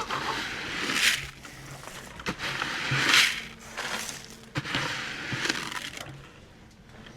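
Chicken scratch grain being scooped and scattered: rustling, crunching bursts about every two seconds, each lasting around half a second, fading near the end.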